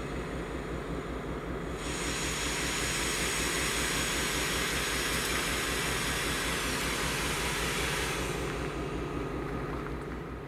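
Diesel locomotive 42103's engine throbbing steadily as it approaches slowly. From about two seconds in to about eight seconds, a loud steady hiss with a high whine joins it and then cuts off.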